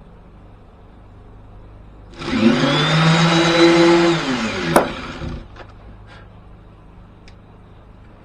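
Corded electric sander switched on briefly: its motor spins up with a rising whine, runs for about two seconds, then winds down and stops. There is a sharp click as it winds down.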